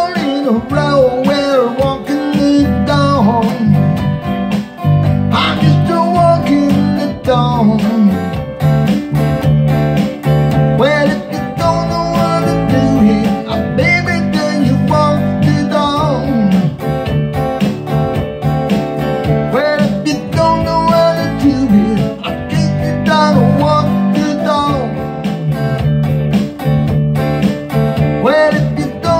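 Electric guitar playing a blues riff with a steady rhythm.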